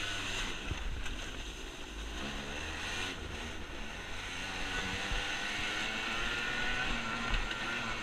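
Dirt bike engine running while riding, its pitch rising and falling with the throttle, over a steady rush of wind noise.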